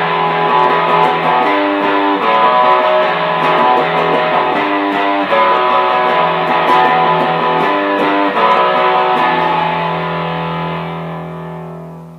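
Intro music with held notes and chord changes every second or two, fading out over the last couple of seconds.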